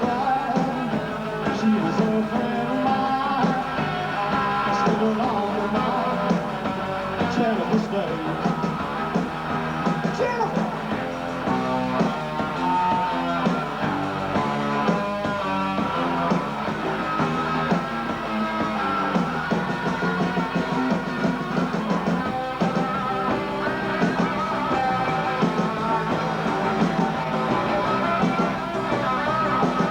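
Rock band playing a song live, with no words clearly sung in this stretch.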